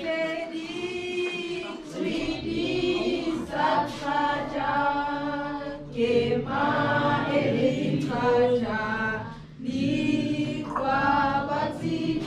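A group of children singing together without accompaniment, in phrases of a few seconds separated by brief pauses.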